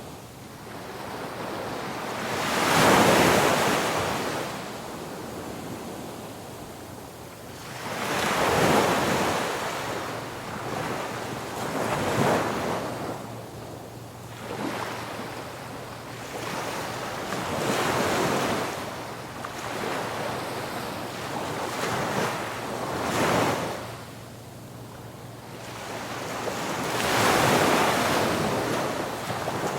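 Ocean waves breaking on a beach, surging and washing back in an irregular rhythm, about one swell every five seconds.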